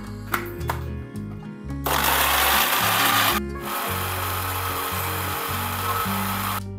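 Electric countertop blender grinding dried chillies, shallots, garlic and ginger into a paste. It runs in a loud burst of about a second and a half, stops briefly, then runs again more quietly for about three seconds.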